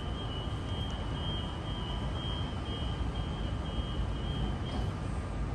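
Sydney Trains Millennium (M-set) electric train standing at the platform, a low rumble with a steady high-pitched whine that stops near the end.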